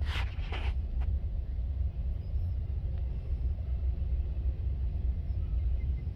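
Intermodal freight train carrying stacked containers rolling past, a steady low rumble heard from inside a car. A brief rustling noise comes in the first second.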